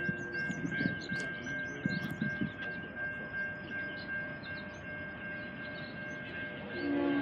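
Railroad grade-crossing warning bell ringing steadily. An approaching diesel freight locomotive's horn chord cuts off just after the start and sounds again near the end, louder.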